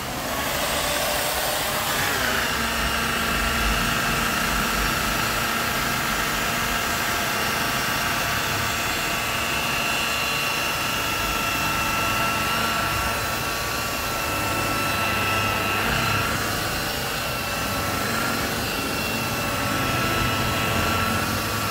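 Handheld electric rotary polisher running with its pad pressed against a car door's paintwork, buffing out scuffs and scratches. A steady motor whine that drops in pitch and settles about two seconds in.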